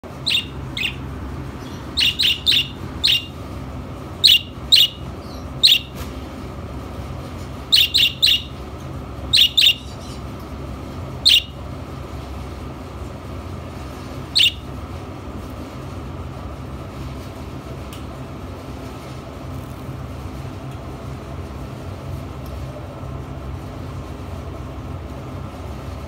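Budgerigar giving short, sharp, high chirps, singly and in quick runs of two to four, through the first fifteen seconds, then falling silent, over a steady low hum.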